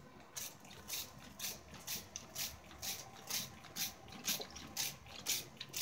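Trigger spray bottle squirting bursts of water mist, about two squirts a second.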